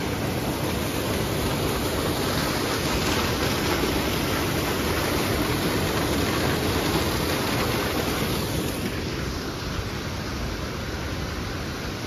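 Partly frozen waterfall pouring over a rock ledge into a pool, a steady rush of falling water that eases a little about nine seconds in.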